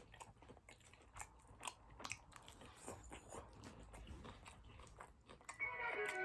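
Close-miked chewing and biting: soft wet mouth clicks and light crunches at an irregular pace, a person eating a Mexican food bowl. Music with a beat fades in near the end.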